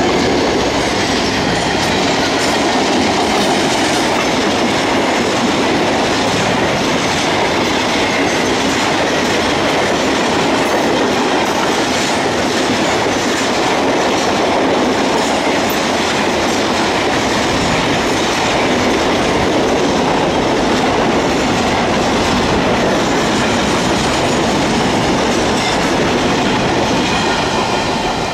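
A long goods train's loaded wagons, carrying steel coils and then containers, rolling steadily past at close range: a loud, even rumble of wheels on rail with a repeated clatter over the rail joints.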